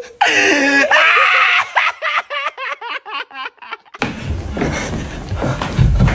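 A man laughing hard: a long high-pitched laugh, then a run of quick laughing breaths that rise and fall. About four seconds in, this cuts abruptly to the scuffling and low thumps of someone moving about.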